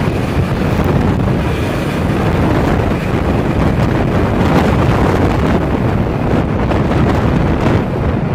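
Air ambulance helicopter climbing away overhead just after takeoff: a loud, steady rumble of rotor and turbines, with wind buffeting the microphone.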